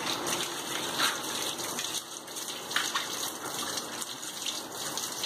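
Kitchen tap water running steadily onto a plastic tea strainer held under the stream, splashing into the sink as the soap is rinsed off.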